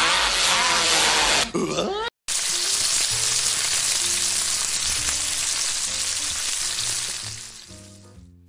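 For about the first two seconds, a man's grunting yell over a harsh noise. After a short break, bacon sizzles in a frying pan over a low, stepped music line, fading out near the end.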